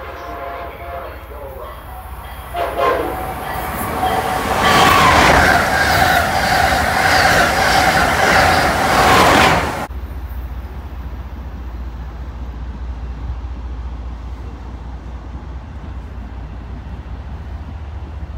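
Passenger train sounding its horn as it approaches, then rushing past close by with loud rail noise under long horn blasts. The sound cuts off suddenly about ten seconds in and gives way to a steady low rumble.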